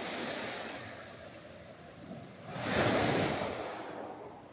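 Sea waves breaking and washing up the beach. One wash fades over the first second, then a louder wave breaks about two and a half seconds in, swells and dies away over about a second and a half.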